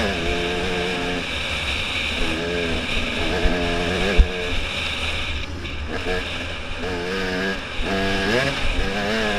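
Off-road motorcycle engine revving in repeated pulls, its pitch climbing in each one before the throttle eases off, with wind rushing over the helmet-mounted microphone. There is a sharp knock about four seconds in.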